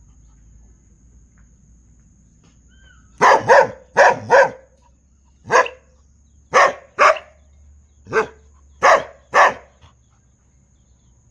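A dog barking: about ten sharp barks, mostly in quick pairs, beginning about three seconds in after a quiet start.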